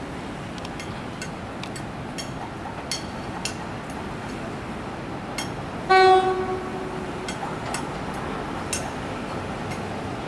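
Tze-Chiang express train's horn sounding one short blast about six seconds in as the train pulls into the station, over the steady rumble of the approaching train and scattered light clicks.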